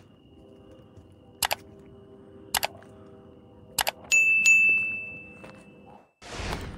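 Horror-style sound effects: three sharp clicks about a second apart, then a loud bell-like ding that rings out for about two seconds, and a whoosh near the end, over a faint droning background.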